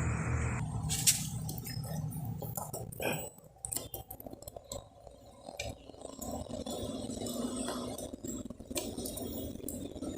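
Light metallic clinks and scrapes of engine parts and tools being handled as the motorcycle engine's shaft and cam sprocket are turned to line up the timing marks. The sharpest click comes about a second in.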